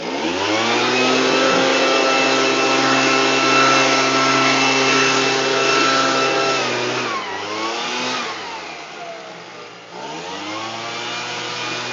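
Leaf blower spinning up to speed and running steadily, then winding down with a falling pitch about seven seconds in, nearly stopping, and spinning up again near the end.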